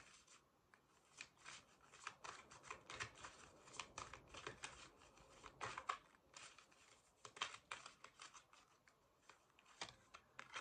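A deck of cards shuffled by hand: a faint, irregular run of quick card flicks and slaps, with a few sharper ones about six and seven and a half seconds in.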